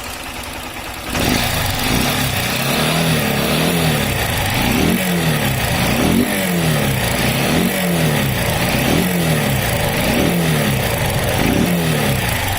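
Honda CG 160 Start's single-cylinder engine running and revved up and down again and again, about once a second, louder from about a second in. It carries a loud mechanical noise from the cylinder head, the top-end fault the bike was brought in for.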